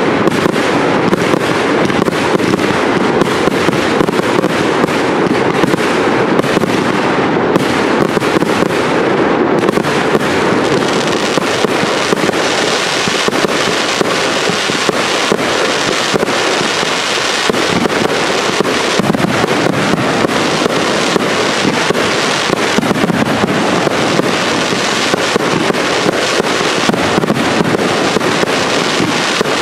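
Cake fireworks (compound batteries) firing without pause: a dense, continuous stream of launches and bursting reports.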